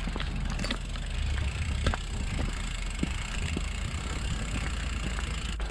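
Wind rumbling on the microphone, with scattered, irregular light clicks and taps from a bicycle being walked on foot.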